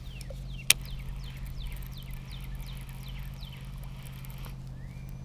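A baitcasting reel gives one sharp click under a second in, then a bird calls a run of short falling whistles, about three a second, over a steady low hum.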